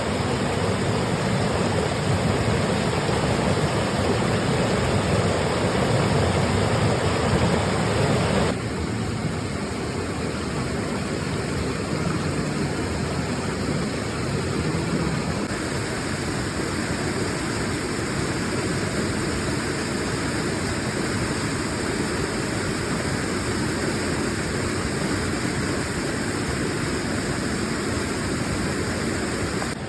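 River water flowing and rushing in a steady wash of noise, dropping slightly in level and brightness about eight seconds in.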